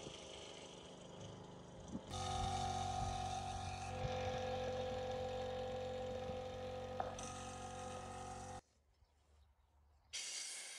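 Excavator's diesel engine running steadily with a steady whine over it. It cuts in suddenly about two seconds in and cuts off about two seconds before the end, leaving near silence.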